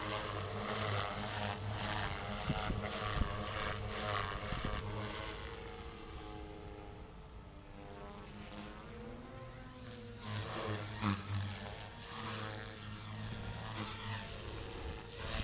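Compass Warp 360 radio-controlled 3D helicopter in flight: the whine of its electric motor and rotor blades rises and falls in pitch as it manoeuvres. It fades somewhat partway through and grows louder again.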